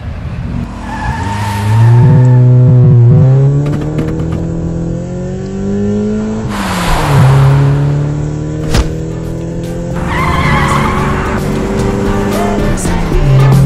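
Car engine accelerating hard, its pitch climbing through each gear and falling back at the gear changes. Tyres squeal about a second in and again about ten seconds in.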